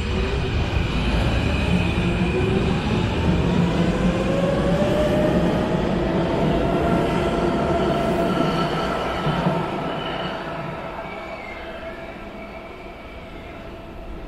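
Brussels Metro M7 train pulling away from the platform: its traction motors whine, rising in pitch as it accelerates, over a heavy rumble of wheels on rail. The sound fades after about ten seconds as the train leaves.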